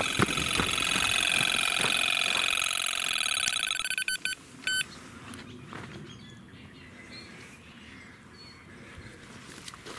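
Electronic carp bite alarm sounding in one continuous warbling tone, the sign of a run with a fish taking line, cutting off about four seconds in, followed by one short beep. Hurried footsteps on the bank can be heard at the start.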